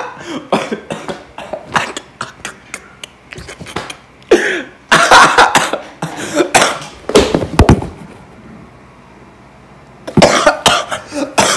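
A young man's loud, breathy fits of laughing and coughing in short bursts, with short knocks from the phone being handled. The bursts stop briefly about two-thirds of the way through, then start again near the end.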